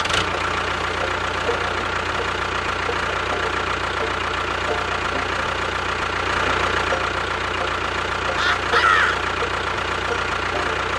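A small engine running steadily at an even speed, with a short whistle-like glide about nine seconds in.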